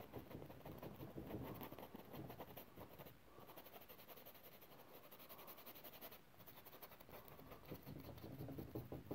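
Faint scratching and dabbing of paintbrush bristles working oil paint onto canvas in quick small strokes, with two short pauses about three and six seconds in.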